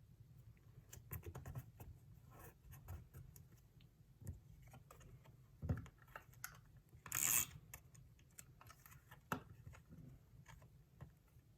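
Close-up paper collage handling: scattered light clicks, taps and crinkles as paper pieces are picked up, laid down and pressed onto a notebook cover. One brief, louder paper rustle comes about seven seconds in.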